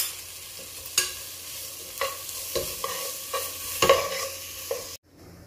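Steel spoon stirring and scraping diced vegetables in a non-stick kadai over a steady sizzle of frying, with sharp clacks of the spoon against the pan about once a second, several close together near four seconds in. The sound cuts off suddenly near the end.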